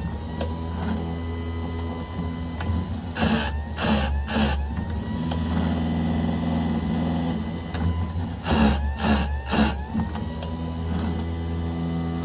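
Electric chainsaw chain grinder running steadily, its wheel grinding the chain's cutters in sets of three quick strokes about every five seconds. After each set the motor's whine climbs back up to speed.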